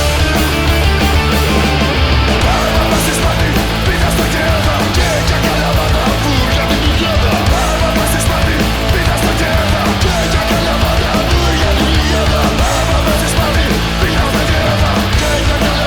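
Loud punk rock band recording playing without a break, with guitar to the fore.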